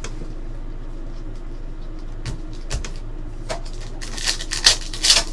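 Trading cards and foil packs being handled: a few light clicks and taps, then several short, sharp rustling swishes near the end, over a low steady hum.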